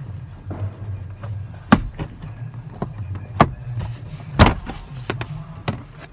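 Plastic under-dash trim panel being pulled off by hand: a handful of sharp knocks and snaps, the loudest about four and a half seconds in, over a steady low hum.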